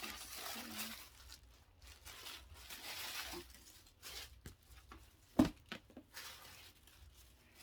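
Packaging rustling and crinkling in several short spells while a box is unpacked, with one sharp knock about five and a half seconds in.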